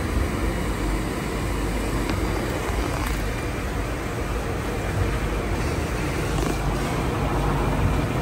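Steady low rumble of vehicle noise, even throughout with no distinct events.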